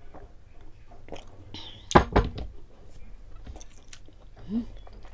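Close-miked eating and drinking mouth sounds: small wet clicks and smacks of swallowing and finger-licking. About two seconds in, a loud short knock as a heavy glass mug is set down on a wooden cutting board, and a brief hum near the end.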